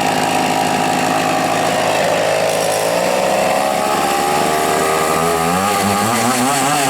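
Chainsaw engine running steadily; its pitch sags a couple of seconds in, then wavers up and down and climbs near the end as the throttle changes.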